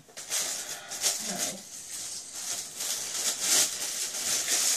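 Clear plastic packaging crinkling and crackling as it is handled and pulled off a packaged item, a dense rustle that starts just after the beginning and keeps going.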